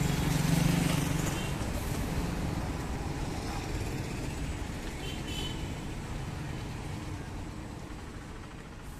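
Street traffic noise: the engine of a passing vehicle is loudest in the first second or so, then the traffic fades to a steady, lower hum.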